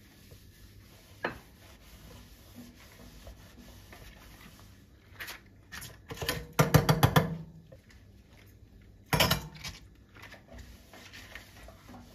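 Metal drain strainer basket clinking and rattling in a stainless-steel sink drain as a rubber-gloved hand works it: one click about a second in, a loud run of quick rattling clicks at about six and a half seconds, and a shorter clatter about nine seconds in.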